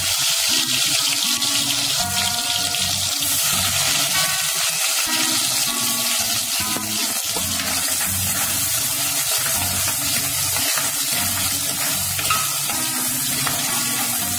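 Sliced shallots frying in hot oil with spluttered fenugreek seeds, a steady sizzle: the onions are going into the tempering oil for a curry.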